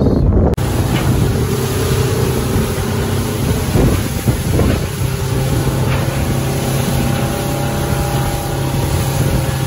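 Motorboat engine running steadily with the boat underway at speed, over the rush of water from the hull and wake.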